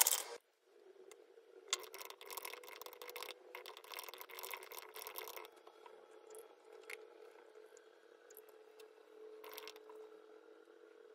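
Plastic ice-cube tray and ice being handled on a table, giving a few seconds of rattling and scraping clatter about two seconds in. After that only faint room tone with a low steady hum and a few small ticks.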